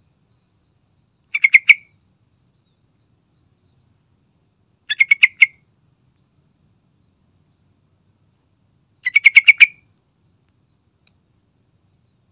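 Yellow-vented bulbul calling: three short phrases, each a quick run of several notes, about four seconds apart.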